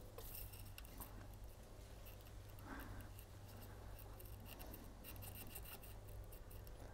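Faint scratching and rubbing of fishing line being sawn through the adhesive behind a motorcycle tank badge, the adhesive giving way a little.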